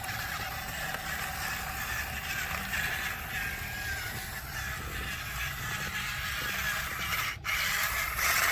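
Small electric motors of RC toy construction machines running with a thin wavering whine, along with scraping and rustling of dirt under the machines. The sound breaks off briefly near the end, then comes back louder.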